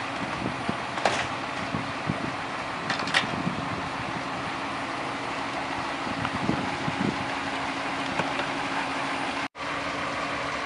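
The Chevy P30 step van's 5.7 L V8 engine idling steadily, with a few short clicks in the first few seconds as the hinged serving-window panels are lowered.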